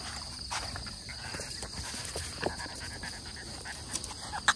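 Steady high-pitched chorus of insects, with a few scattered light clicks and rustles.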